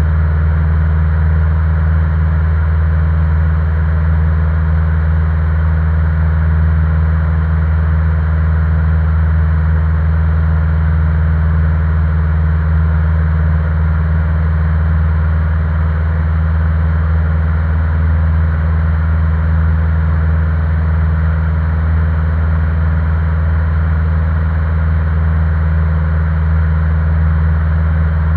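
Single-engine light aircraft's piston engine and propeller running steadily in cruise flight, heard from inside the cockpit as a loud, even low drone.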